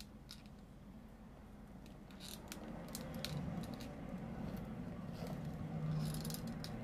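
Faint clicks and rustles of hot-glue work: a hot glue gun's trigger squeezed in short runs as glue is laid along the seams of a pack of lithium-ion cells, and gloved hands shifting the cells, over a low steady hum.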